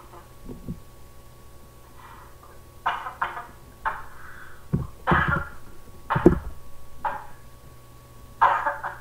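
Muffled, breathy bursts of stifled laughter, about eight short bursts from about two seconds in, with a few dull thumps of a microphone being bumped.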